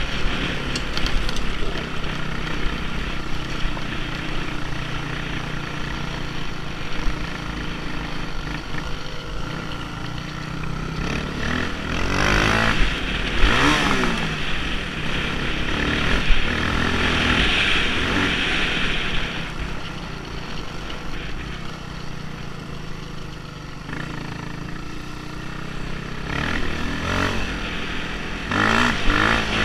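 Off-road motorcycle engine running under way on a dirt trail, picked up close by an action camera on the bike, its revs rising and falling with the throttle about halfway through and again near the end.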